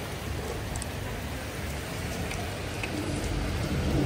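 Steady rain during a thunderstorm, with a low rumble of thunder starting to build near the end.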